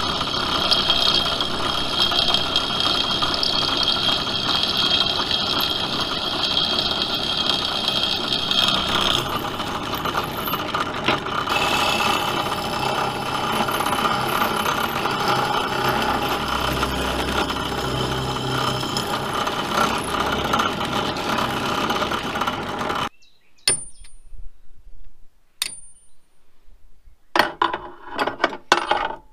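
Bench drill press running, its bit working into the old bush in a Land Rover leaf-spring eye, the tone shifting about a third of the way through. It stops abruptly with a few seconds to go, followed by a few sharp metal clinks and knocks as the steel spring is handled.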